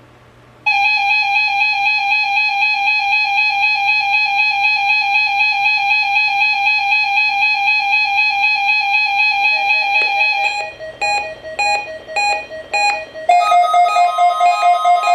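Electronic alert tones from a Reecom R-1650 weather-radio receiver sounding for a NOAA Weather Radio Required Weekly Test. A steady buzzy tone starts about a second in and holds for about ten seconds, then breaks into short beeps, and near the end turns to a fast-pulsing two-note alarm.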